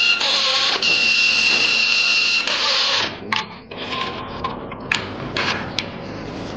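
Cordless inline electric screwdriver running on bolts in an engine block, a high steady whine with two short breaks, stopping about three seconds in. After that, light metallic clicks and clinks from gear and shaft parts being handled.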